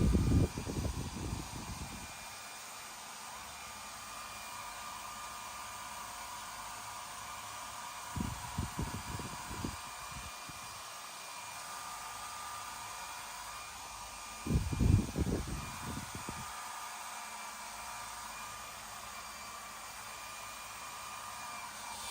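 Steady whir of a small electric motor with a faint hum in it, broken three times by short low rumbling bumps.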